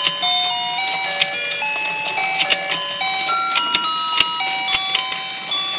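Electronic tune from a battery-powered rotating toy fishing pond: a simple beeping melody of single held notes stepping up and down, with frequent sharp plastic clicks and taps from the toy.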